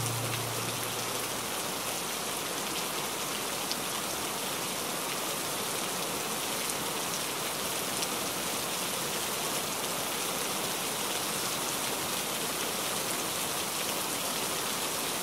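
Steady rain falling on a window pane, with the odd faint drop tick. The tail of a low music note dies away in the first second or so.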